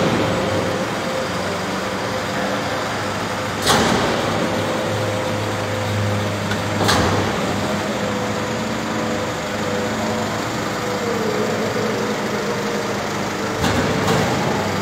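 Hydraulic rear-loading garbage compactor body running a packing cycle, powered by the truck's running engine: a steady hum and pump whine, with sharp metallic clunks about four and seven seconds in and again near the end.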